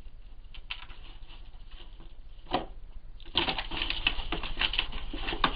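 Two badgers feeding from a dish: scattered clicks of chewing and of snouts knocking the dish, then a dense, busy run of crunching and clicking from about three seconds in.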